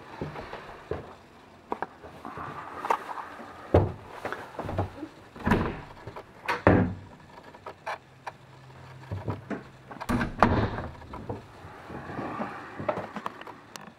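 Irregular knocks, thumps and clicks of someone moving through a sailing yacht's wood-panelled cabin: footfalls on the wooden cabin sole and cabin doors bumping and latching, with several heavier thumps spread through.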